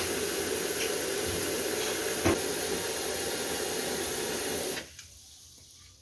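Water running steadily from a kitchen tap, filling a basin with water and vinegar, with a single knock about two seconds in; the running water stops abruptly about five seconds in.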